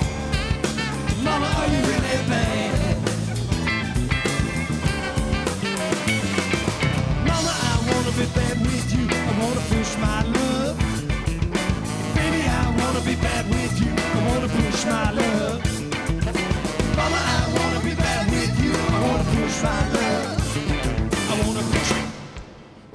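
Live rock band playing an instrumental passage, with drums, bass, guitars, keyboards and saxophone; the sound drops away sharply near the end.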